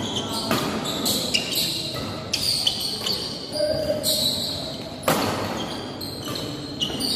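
Badminton doubles rally echoing in a sports hall: rackets hitting the shuttlecock several times, with a sharp hard hit about five seconds in, and sports shoes squeaking on the court floor between shots.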